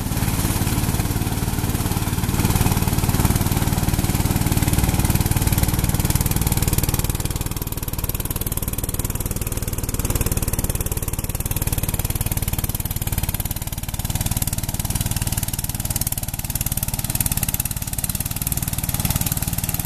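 Riding lawn mower's engine running steadily under load while its cutting deck shreds tall brush. The higher, hissing part of the noise eases after about seven seconds.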